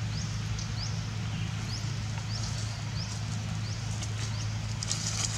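Outdoor ambience over a steady low hum, with short, high, rising chirps repeating every half second or so. Near the end, rustling in dry leaves.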